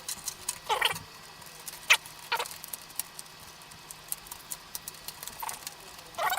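PC cables being handled and fed through a case cutout: scattered light clicks and taps, with a few brief squeaky rubs of cable sheathing against the case.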